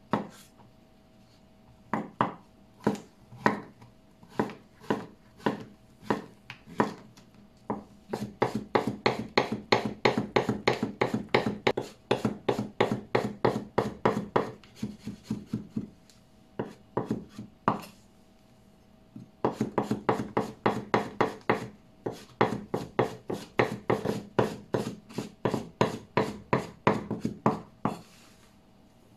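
Kitchen knife chopping king oyster mushrooms on a wooden cutting board. A few slow single cuts come first, then long runs of rapid chops, several a second, broken by short pauses.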